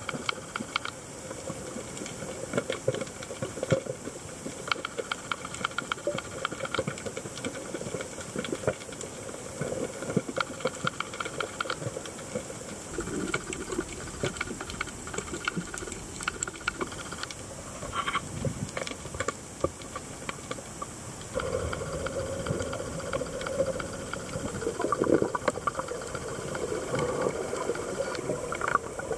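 Underwater ambience picked up by a camera beneath the sea: a steady hiss with dense, irregular crackling clicks.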